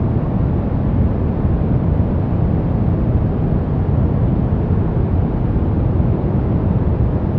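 Steady deep brown noise: an even, unbroken rumble of hiss weighted toward the bass, falling away in the highs.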